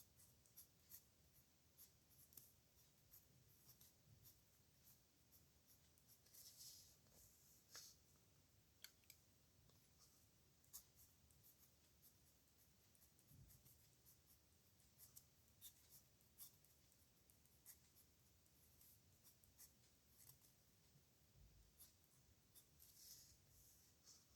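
Faint scratching and ticking of a pen nib on paper as it writes, in short irregular strokes with a few longer scratches.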